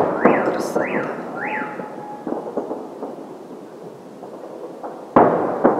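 Distant aerial fireworks shells bursting, with a sharp bang about five seconds in, and crackling and echoing rumble between the bangs. A few rising-and-falling whistles sound in the first two seconds.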